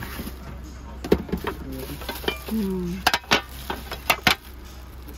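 Metal cookware being handled: a pot and its lid clinking together in a handful of sharp knocks, most of them in the second half.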